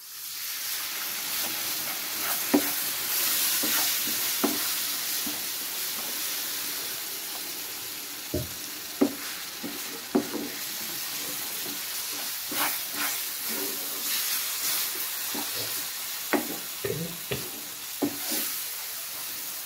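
Water hitting a hot pan of roasting flour and psyllium husk halwa, sizzling at once and strongest in the first few seconds. A wooden spoon stirs the mixture, with scattered knocks and scrapes against the pan.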